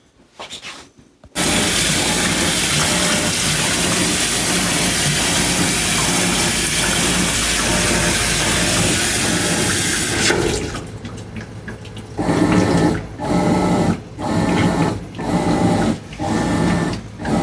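Water rushing into a new Maytag washing machine's tub through its fill valve, starting suddenly about a second in and running steadily. About ten seconds in it drops to a quieter sound that pulses roughly once a second.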